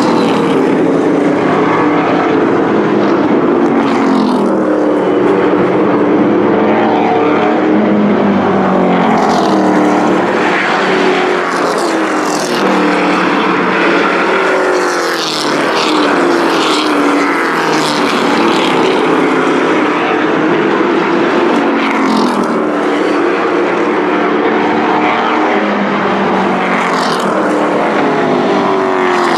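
Thunder Truck race trucks' engines running laps on a paved oval. Several engines overlap, each rising and falling in pitch every few seconds as the trucks come off and go into the turns.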